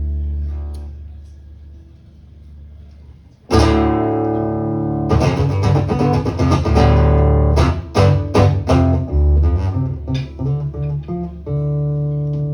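Guitar played live: a chord rings and fades away, then a loud strum about three and a half seconds in starts a run of quick strummed and plucked chords, ending on a held chord.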